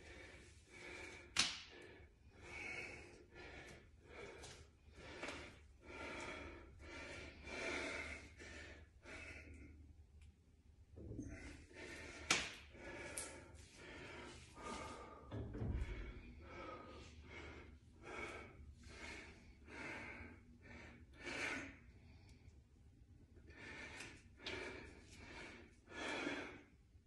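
A man breathing hard in short, repeated breaths, gasps and snorts, some of them voiced, while straining to flex. Two sharp clicks stand out, about a second in and about twelve seconds in.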